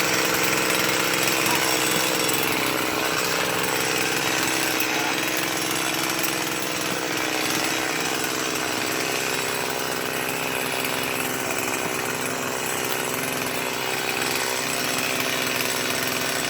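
A small engine running at a steady speed throughout, with no revving up or down.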